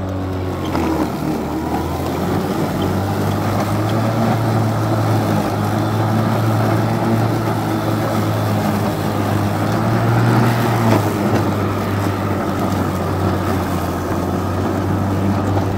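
Kobalt 80-volt brushless cordless electric lawn mower running while it is pushed through grass, cutting and mulching. The motor and blade make a steady hum with a whir of grass being cut.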